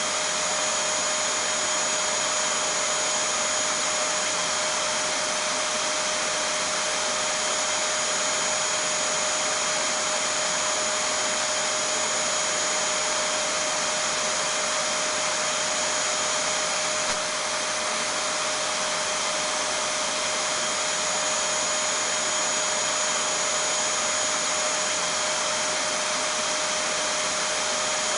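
Vacuum cleaner running steadily: an unbroken rush of air noise with two constant whines, one mid-pitched and one high, and no change in speed.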